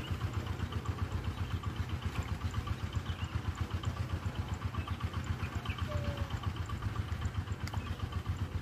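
A small engine running steadily at idle, with a fast, even throb of about eight pulses a second.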